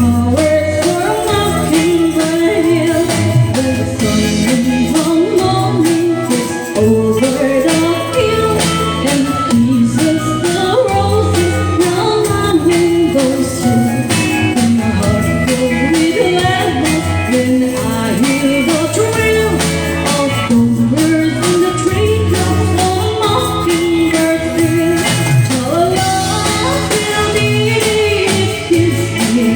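Live band playing a waltz, a singer's voice over guitar, bass and drums.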